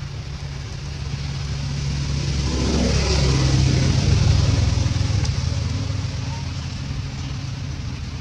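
A motor vehicle's engine passing by, growing louder to a peak about three to four seconds in and then fading, over a steady low engine hum.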